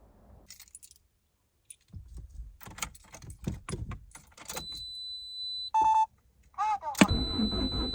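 Car keys jangling and clicking for several seconds, then a high steady beep and a short lower beep. A loud click about seven seconds in is followed by steady running noise as the Lancia Delta HF Integrale's engine is started.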